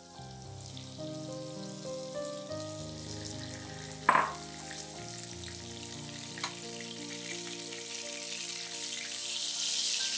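Melted butter and oil sizzling in a frying pan, the sizzle growing louder near the end as chopped garlic goes in and is stirred with a spatula. One short sharp click about four seconds in, over background music.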